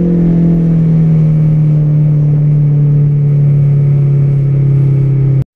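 Honda Integra's engine heard from inside the cabin while driving, a loud steady note whose pitch slowly falls as the revs drop. It cuts off suddenly near the end.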